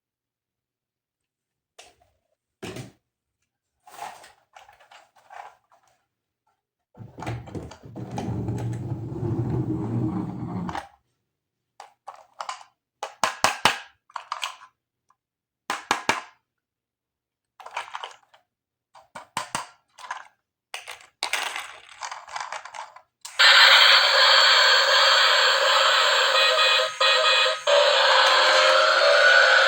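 Plastic toy pieces and packaging are handled in a string of short clicks and knocks, with a louder rustling stretch partway through. Near the end a battery-powered toy switches on and plays loud electronic music.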